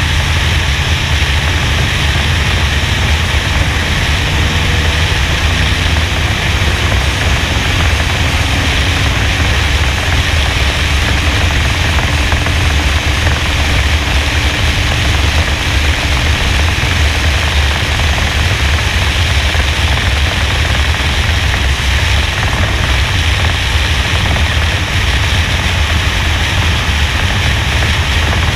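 Steady rush of wind over a roof-mounted action camera on a NASCAR-style stock car at racing speed, with the car's V8 engine running as a low drone underneath. The engine note stays even, with no clear lift off the throttle.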